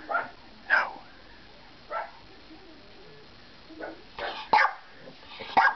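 Pomeranians barking: single short barks at first, a quiet spell of about two seconds, then a quick run of barks near the end.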